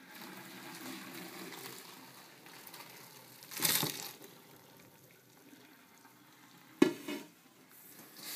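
Hot water and noodles being poured from a pot into a colander in a stainless steel sink, splashing, with a louder rush about three and a half seconds in. A single sharp knock comes near the end.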